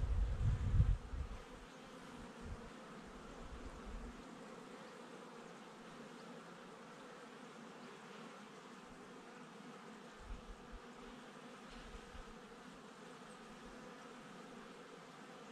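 Honeybees buzzing around their hive, a steady hum. A low rumble stands out in the first second or so.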